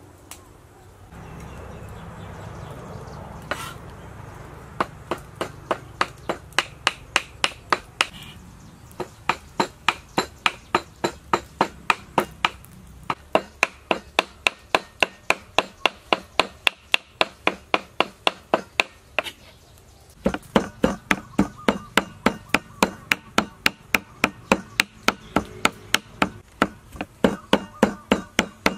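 Cleaver mincing raw fish flesh on a round wooden chopping block: a fast, even run of knocks, about three a second, with a short pause about two-thirds of the way through.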